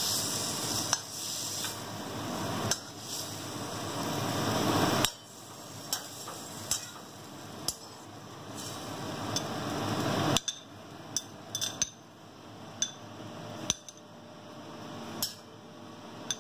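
Metal spatula scraping and knocking against a steel kadai as fried water spinach is scooped out into a bowl: a dozen or so sharp clinks spread irregularly through, over a steady background noise that swells and cuts off abruptly twice.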